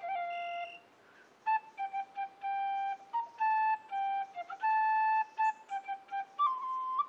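A flute playing a slow melody of clear, held notes, with a short pause about a second in and a step up to a higher note near the end.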